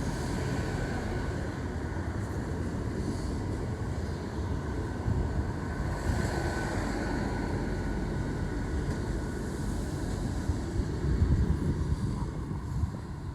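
A train running at the station, a steady low rumble with faint steady tones over it.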